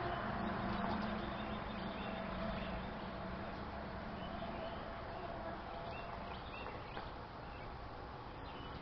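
Steady outdoor background noise that slowly fades, with a few faint bird chirps toward the end.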